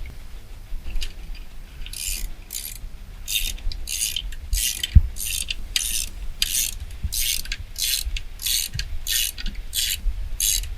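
Hand ratchet clicking in short, quick back-strokes, about two a second, as a tool is tightened down on a truck's steering column.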